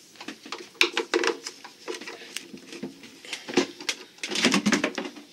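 Wooden companionway steps of a sailboat being handled and lifted off: a run of light clicks and knocks, with a louder scrape-and-knock stretch near the end.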